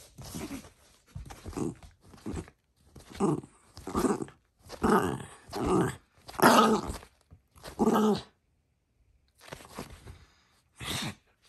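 Small dog play-growling while it mouths a person's hand: about ten short growls one after another, with a short pause near the end.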